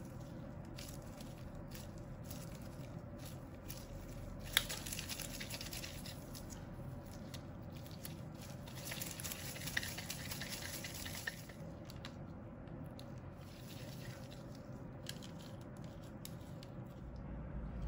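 Gloved hands rolling soft Oreo and cream cheese dough into balls between the palms: faint squishing and rubbing of the gloves, with light rustling of parchment paper. There is a sharp tick about four and a half seconds in, and louder rustling at about five seconds and again at about ten.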